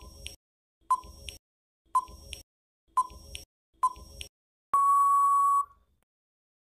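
Quiz countdown timer sound effect: five short beeps about a second apart, then one longer steady beep lasting about a second as the count runs out.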